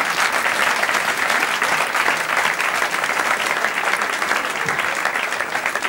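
Theatre audience applauding steadily: dense, even clapping from many hands.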